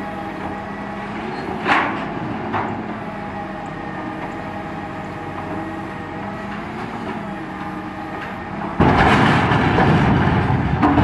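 Builtrite 88-TM truck-mounted hydraulic grapple loader working: a steady engine and hydraulic hum with several held tones, with two sharp knocks about two seconds in as the grapple works over the dump body. Near the end a much louder rushing noise comes in suddenly.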